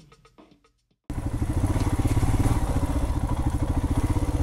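Background music with a beat stops about a second in. After a short gap, a Royal Enfield Himalayan's single-cylinder engine starts sounding, running steadily with a rapid, even pulse.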